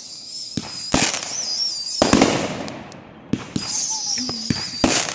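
Fireworks going off: three loud bangs, about a second in, about two seconds in and near the end, each with a trailing echo, and a few smaller pops between them.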